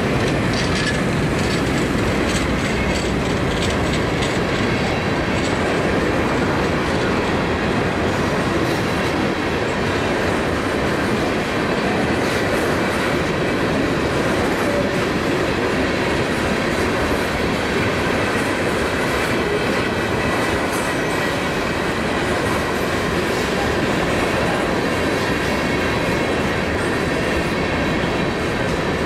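Freight train of covered hoppers and tank cars rolling past close by: a steady rumble of steel wheels on rail with rhythmic clicking over the rail joints and a faint high wheel squeal.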